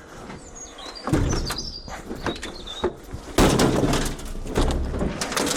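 Scrap metal being handled, with knocks and scrapes and a loud clatter about three and a half seconds in. Small birds chirp in the first two seconds or so.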